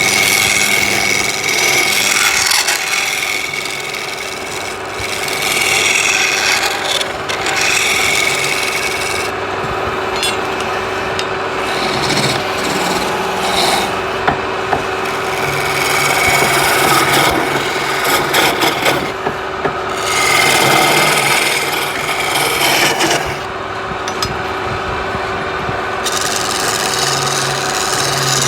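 Wood lathe running while a turning tool scrapes and cuts the spinning wood. The scraping grows and fades in waves over a steady motor hum, with a few short clicks.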